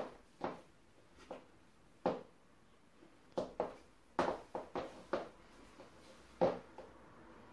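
Stiletto platform high heels clicking on a hard wooden floor as the wearer walks, with a quicker run of steps about four to five seconds in. A single louder knock comes near the end, after the wearer has sat down.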